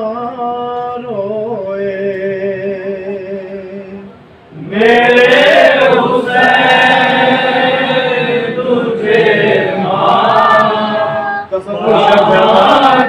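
Noha, a Shia mourning lament, sung by men: one voice holds a long drawn-out note for about four seconds. After a short pause, a group of voices comes in loudly in chorus, breaking off briefly near the end.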